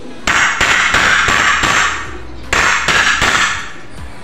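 Hammer blows on a wooden door jamb piece, driving in nails: two quick runs of sharp strikes, about three a second, the first of about five blows and the second of about four after a short pause.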